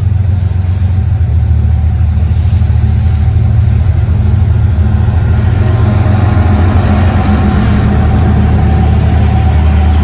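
Norfolk Southern and Union Pacific diesel-electric freight locomotives passing at close range while climbing a grade. Their engines give a loud, steady, deep drone.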